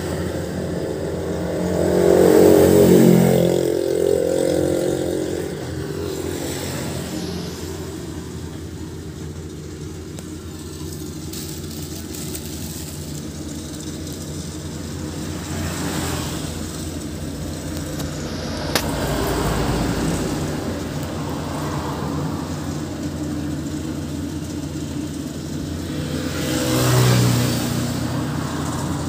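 Engine of a rice harvesting machine running steadily, growing louder for a few seconds about two seconds in and again near the end.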